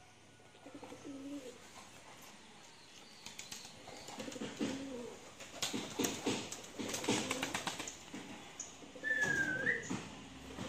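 Domestic pigeons cooing as they are hand-fed, with a run of sharp clicks and wing flutters in the middle. A short, higher call that falls and then rises comes near the end.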